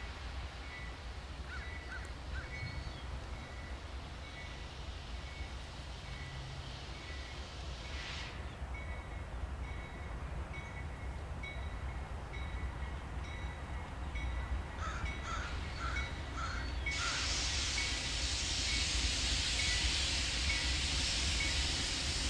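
A bell rings steadily, about two strokes a second, over a low rumble, with a few crow caws. About three-quarters of the way through, a loud rushing hiss from the approaching Union Pacific light engines sets in and keeps building.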